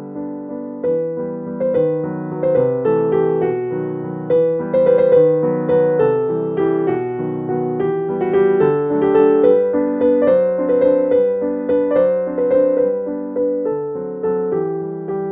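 Background piano music: a gentle melody of struck notes over soft chords, about two notes a second.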